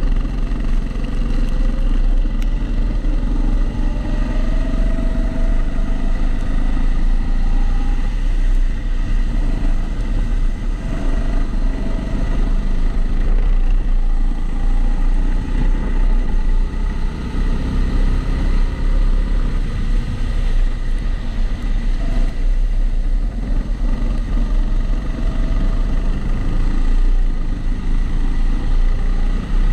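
Kombikart Eco kart running flat out on a lap, heard from onboard, its engine note rising again and again as it accelerates out of corners, with a regular extra noise from the camera's housing.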